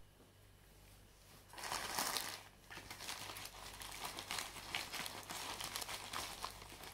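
Plastic courier mailer bag crinkling as it is picked up and handled, starting about one and a half seconds in.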